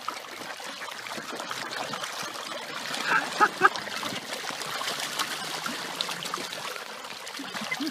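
Continuous splashing and churning water from a mass of carp thrashing and gulping at the surface. A few short pitched calls stand out about three seconds in.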